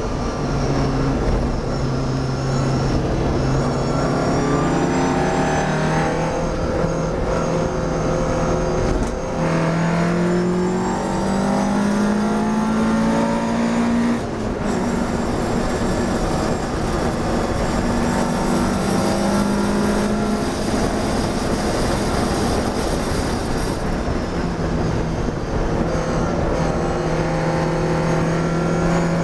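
Classic race car's engine heard from inside the cockpit under racing load, with road and wind rumble. The engine note rises as the car accelerates and drops sharply about halfway through at a gear change, then eases and climbs again near the end.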